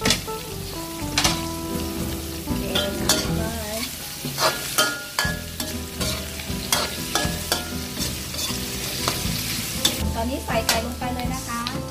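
Diced bell peppers and onion stir-frying in hot oil in an aluminium wok, sizzling, with a metal ladle scraping and clinking against the wok as the vegetables are turned.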